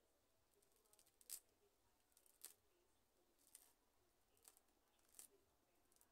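Faint, crisp snips or clicks, about five spaced roughly a second apart, from hands working on a plant while repotting it.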